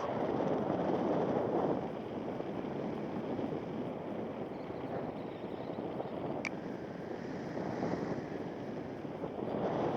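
Wind rushing over the microphone from airflow in paraglider flight: a steady rushing that swells near the start and again near the end, with one brief high click about six and a half seconds in.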